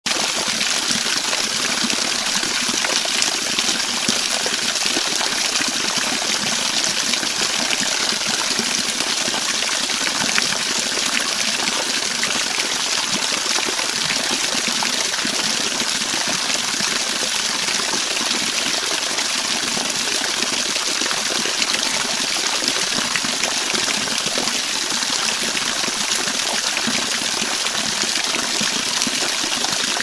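Small waterfall pouring over a rock ledge: a steady, even rush of splashing water, bright and hissy, with no let-up.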